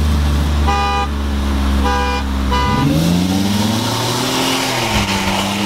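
Supercharged Ford SVT Lightning V8 droning steadily, heard from inside the cab, while a horn gives three short toots about a second apart. Then the engine's revs climb for about two seconds as the truck accelerates, and drop back and settle near the end.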